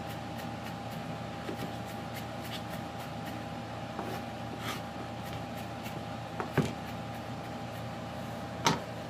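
Kitchen knife finely chopping ginger on a wooden cutting board: a run of light, quick taps of the blade, with a couple of louder knocks later on. A steady faint hum runs underneath.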